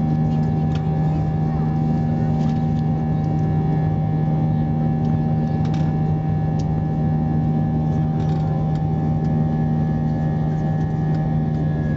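Airbus A320-214's CFM56 jet engines at takeoff power: a loud, steady rumble with a constant hum held under it throughout.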